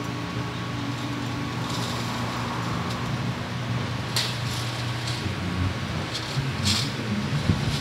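Thin corrugated metal radiator fin strips rustling and clinking as they are slid by hand into the comb rack of a horizontal radiator core assembler, a few short sharp clinks over a steady low machine hum.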